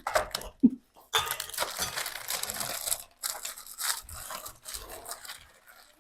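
Cookie packets crinkling and tearing, with a crackly rustle as the cookies are opened and emptied out, strongest in the first half and then in scattered bits.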